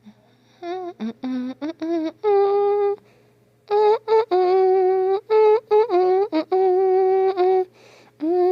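A child's voice imitating a siren: a string of short hummed notes with quick wobbles in pitch, then longer held notes with brief bends, broken by short gaps.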